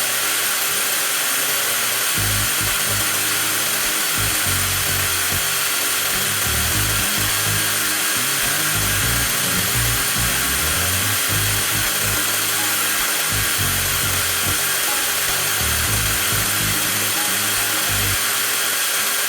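TOTAL 20V cordless angle grinder with a brushless motor, running unloaded at steady full speed with a constant high whine.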